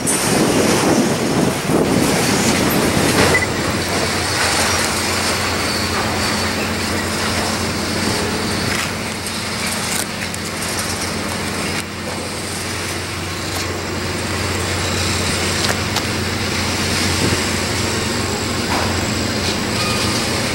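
Freight train cars, autoracks among them, rolling past on the rails with a continuous wheel rumble and occasional clicks, over a steady low hum.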